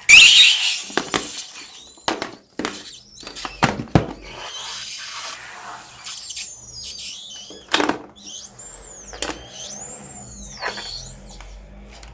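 Rubber balloon squeaking as it is handled and stretched, several squeaks rising and falling in pitch near the end, among scattered clicks and a loud hissing burst at the very start.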